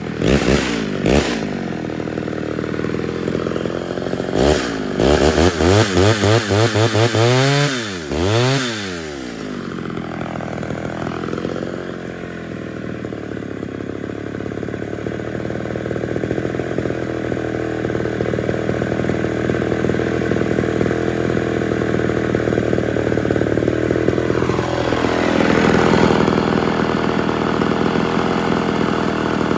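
Homelite two-stroke chainsaw revved in quick throttle blips, then running steadily through a log in a long cut. The chain is too dull for the owner's liking.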